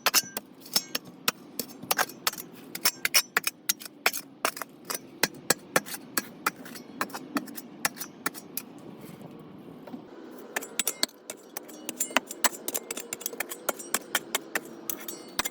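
Digging in rocky ground: a metal tool clinks and scrapes against stones in quick, irregular clicks, several a second, with a short lull about two-thirds of the way through.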